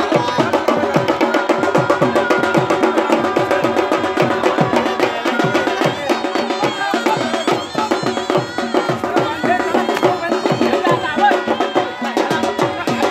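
Fast traditional Indian drumming: rapid sharp strokes over a deep drum whose note slides down in pitch about twice a second, with a faint murmur of voices.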